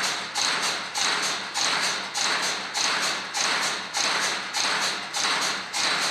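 Fatigue test bench cycling a load on a repaired carbon bicycle frame: a sharp, noisy stroke that fades quickly, repeating evenly about twice a second.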